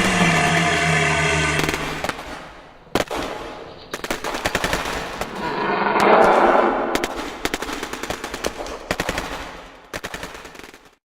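Automatic gunfire: rapid shots from about three seconds in, running until the sound cuts off just before the end, with a louder swell of noise about six seconds in. It opens on a steady pitched drone that stops about two seconds in.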